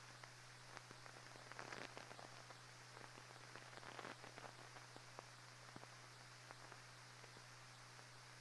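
Near silence on a 16mm film soundtrack: faint hiss and a steady low hum, with scattered clicks and crackles, a few more of them about two and four seconds in.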